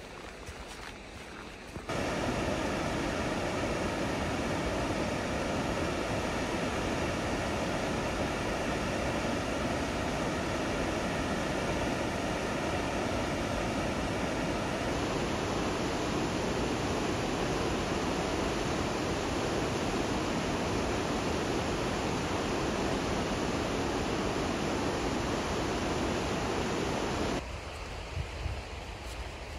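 River rapids in a rocky gorge: a steady rush of white water that starts suddenly about two seconds in and cuts off suddenly near the end.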